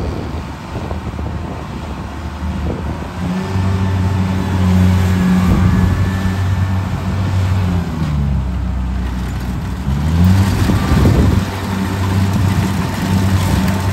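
Kubota 70 rice combine harvester's diesel engine running steadily while it drives and cuts through lodged rice. About eight seconds in, the engine note sinks in pitch, then climbs back about two seconds later.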